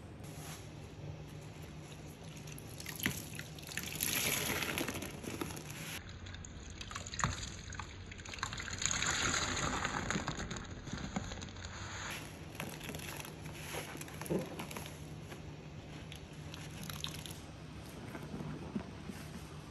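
Bleach solution splashing and dripping as it is worked by hand, with two longer gushing swells about four and nine seconds in and a few sharp taps.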